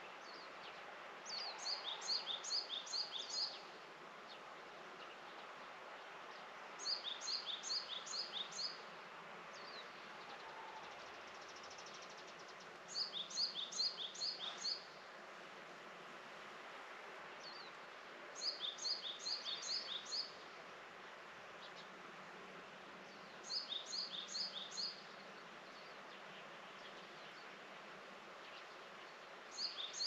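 A small songbird singing the same short phrase of about six quick, high chirps, repeated about every five to six seconds, over a steady outdoor background hiss.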